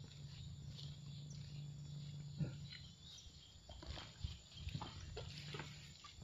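Footsteps on a wet dirt forest track, as irregular soft knocks. A low steady hum is there for the first couple of seconds and returns near the end, over faint insect chirring.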